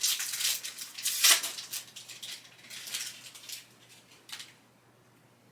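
Crinkling and rustling of a foil trading-card pack wrapper and cards being handled as a pack is opened, in short crackly bursts that stop about four and a half seconds in.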